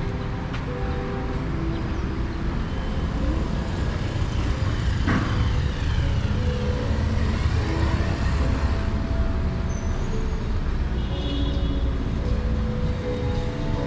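Road traffic on a city street: a steady low rumble of passing car and scooter engines.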